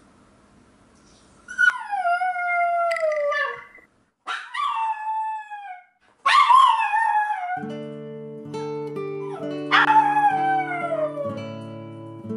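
A toy poodle howling for its absent owners: four long, drawn-out cries, each falling in pitch, with short breaks between them. Soft guitar music comes in about halfway through.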